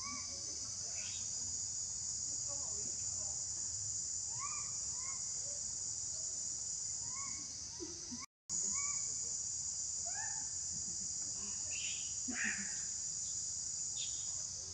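Steady high-pitched insect chorus, with short chirping calls scattered over it. The sound cuts out for a split second just past the middle.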